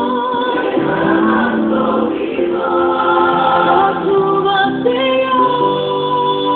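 A choir singing a gospel worship song, several voices holding long notes in harmony.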